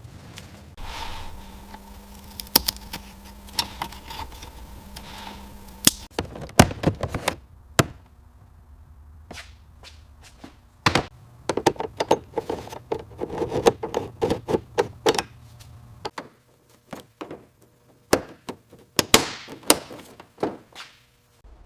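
Irregular knocks, taps and clanks of hand work on a car, some in quick runs, over a faint steady hum during the first few seconds.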